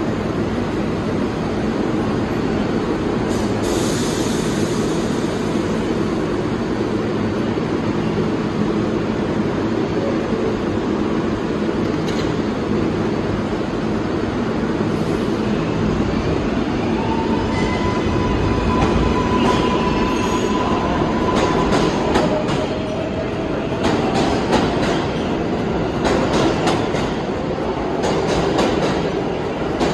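R188 subway train moving through the station: a steady rumble with a low hum, and a brief hiss about four seconds in. Past the middle the rumble swells and the wheels squeal for a few seconds, then a run of rapid clicks from the wheels crossing rail joints.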